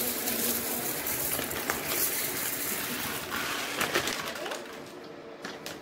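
Dry rice grains pouring from a plastic packet into a stainless-steel bowl: a dense hiss of grains hitting the metal that thins out about three and a half seconds in, followed by a few scattered clicks and rustles.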